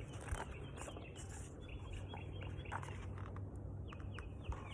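Faint bird chirps, a few short quick calls in small clusters about two seconds in and again near the end, over a low steady hum.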